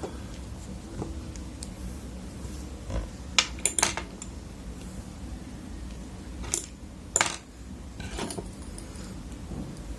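Small screwdriver clicking and scraping against the metal parts of a baitcasting reel: scattered sharp metallic clicks and short scrapes, a cluster about three and a half seconds in and two more near the seventh second. It is scraping out salt buildup left by saltwater use.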